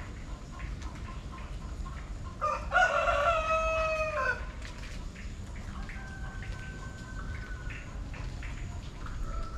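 A rooster crows once, loud, about two and a half seconds in, the call lasting under two seconds. A second, much fainter crow follows about six seconds in.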